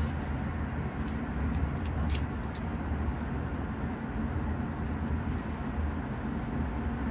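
Steady low rumble of background noise, with a few faint clicks and smacks from someone eating chicken and rice by hand and chewing.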